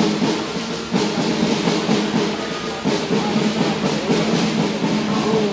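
Music led by drums: a beat of drum hits over sustained, slightly wavering tones.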